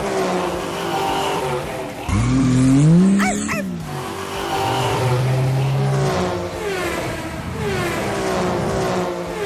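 Cartoon engine-revving sound effects for toy vehicles driving off. About two seconds in there is one loud rev that rises and then falls.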